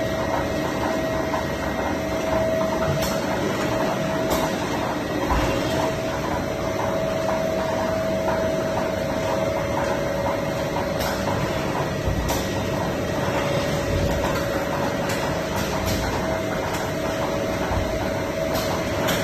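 Automatic steamed-bun (mantou) production-line machinery running steadily: a constant mechanical hum with a held tone, a fast, even ticking, and a few sharp clicks now and then.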